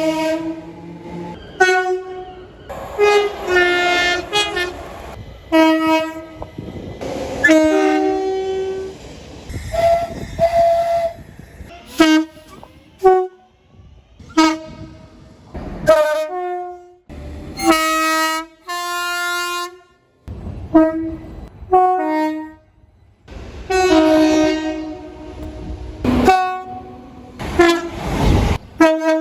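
British train horns sounding over a dozen short blasts in quick succession, several stepping between two notes, each cut off abruptly as one recording gives way to the next.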